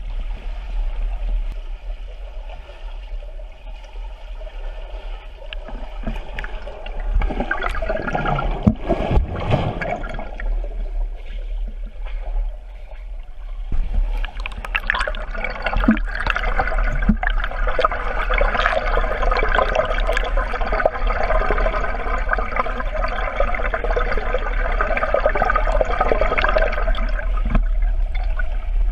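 Muffled underwater churning and bubbling of pool water stirred by a swimmer's strokes and kicks, heard through a submerged camera, with a steady low hum beneath. It swells briefly about a third of the way in and grows denser and busier about halfway through.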